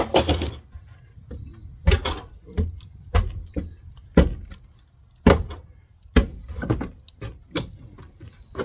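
Wall demolition: irregular knocks and wooden cracks, roughly one a second, with scraping between, as old boards and studs are struck and pried loose from the wall framing.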